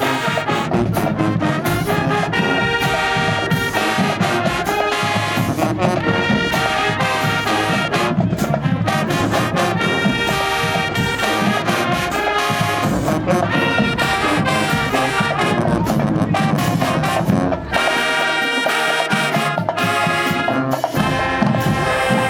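High school marching band playing loudly, brass section led by trombones and trumpets over a steady drum beat.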